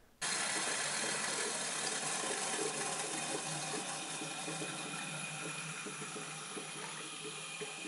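Watery filtrate running in a steady stream from a Büchner funnel's stem into a glass filter flask and splashing into the liquid below, growing slightly quieter over the seconds.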